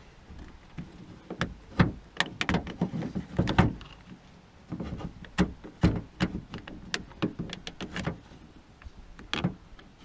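Repeated irregular plastic clicks and knocks from the Hyundai i40's rear door lock as a two-legged plastic clip is pushed in and worked loose by hand.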